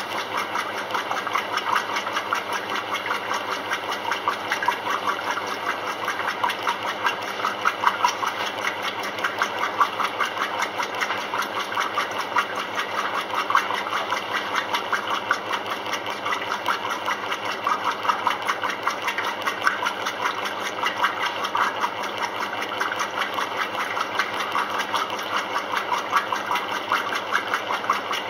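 Maytag commercial top-load washer running mid-cycle, a steady, rapidly pulsing mechanical sound that swells and eases a little.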